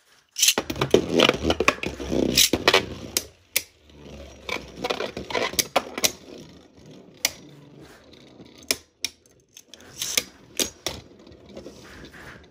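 Two Beyblade Burst spinning tops launched into a plastic stadium, loudest as they land and whirr about half a second in, then spinning and clashing, with sharp clicks of their collisions scattered throughout.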